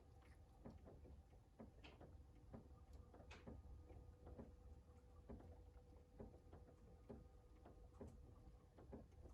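Faint rain heard indoors: drops tapping irregularly, about three a second, over a low steady hum.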